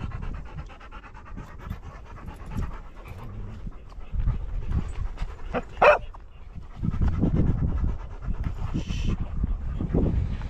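A dog panting hard in quick, rhythmic breaths, with a single short, sharp sound just before the six-second mark.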